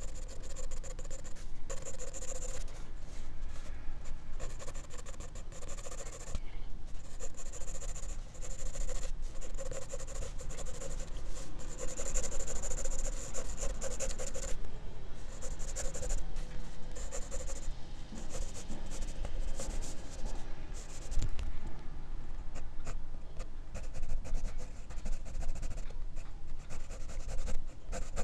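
Pencil scratching on drawing paper in quick shading and sketching strokes, picked up close by a microphone on the drawing hand's wrist. The strokes come in runs of a second or two with short pauses between.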